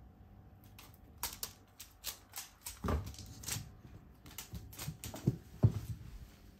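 Cats' claws clicking and paws tapping irregularly on a hardwood floor as they scramble about, with a few heavier thumps in the second half, the loudest just past five seconds in.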